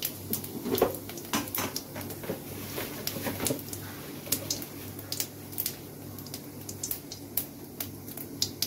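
Cumin seeds crackling in a little hot oil in an aluminium kadai: irregular sharp pops, a few a second, over a low steady background.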